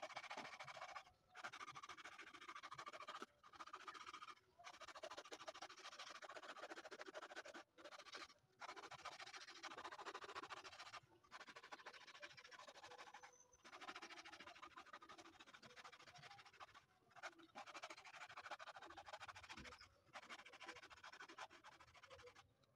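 Coarse 80-grit sanding disc rubbed by hand against the inside of a carved wooden bowl: a continuous scratchy rasp of abrasive on wood, broken by short pauses every few seconds as the strokes change.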